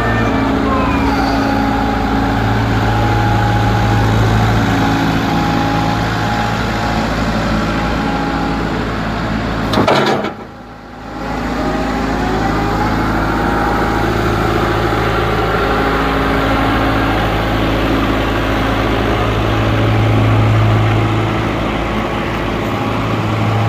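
Excavator's diesel engine running steadily, with higher whining tones that rise and fall in pitch as it works. About ten seconds in there is a sharp click and the sound briefly drops away before the engine carries on.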